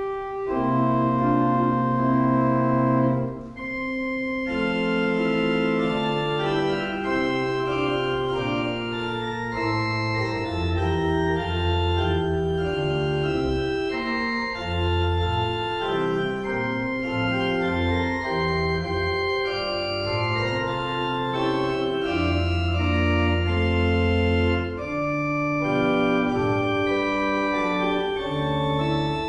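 Pipe organ playing slow, held chords over long, deep bass notes, the harmony changing every second or so.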